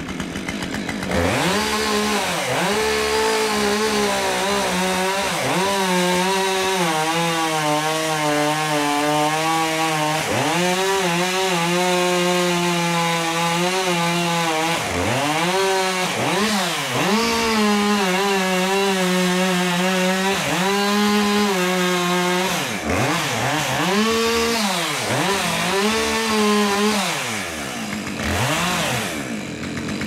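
Two-stroke chainsaw revving up from idle about a second in and cutting into the base of a tree trunk at full throttle, its pitch wavering as the chain bites into the wood. In the second half it is throttled up and down several times, and it drops back toward idle near the end.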